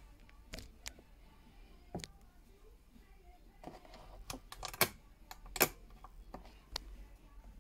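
Irregular light clicks and clacks from a vintage sewing machine's mechanism being worked by hand, about ten in all, the two loudest a little past the middle.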